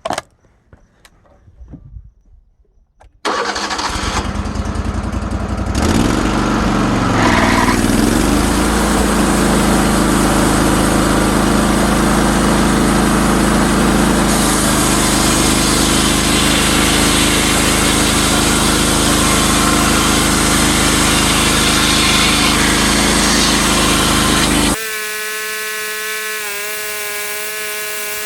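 Wood-Mizer sawmill's engine starts about three seconds in, rises in pitch over the next few seconds, then runs steady and loud. Near the end it drops abruptly to a quieter, steady hum with a clear pitch.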